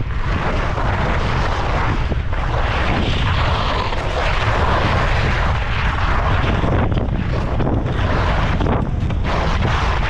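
Skis scraping over hard, icy, bumpy snow: a continuous loud hiss that swells and fades with each turn. Wind buffets the camera's microphone as a steady low rumble underneath.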